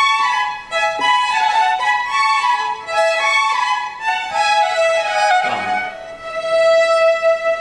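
Violin playing a quick melodic passage of changing notes, settling onto one long held note near the end.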